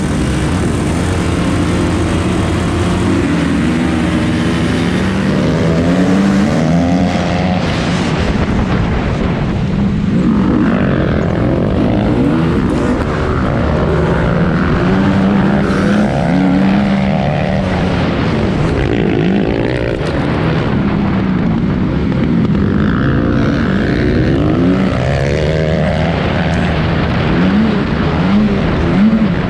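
Honda CRF250R's single-cylinder four-stroke engine under hard acceleration, revving up and dropping back over and over as it shifts through the gears.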